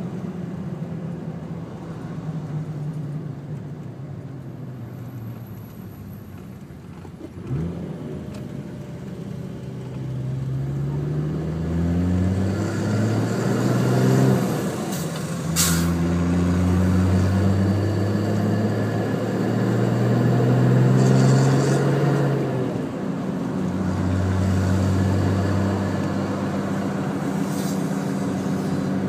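Turbocharged Nissan RD28 2.8-litre straight-six diesel, heard inside the cab through a 3-inch exhaust with no mufflers. It runs quietly at first, then pulls harder and louder about a third of the way in, its drone rising in pitch in stages and dropping back between gear changes before settling to a steady run near the end. A sharp click about halfway through.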